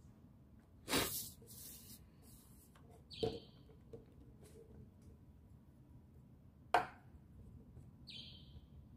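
Plastic set square and ruler handled on drawing paper: a knock about a second in as the set square is set down, a rubbing slide as it is pushed against the ruler, and a sharp tap about two-thirds through. A short bird chirp sounds twice in the background, about three seconds in and near the end.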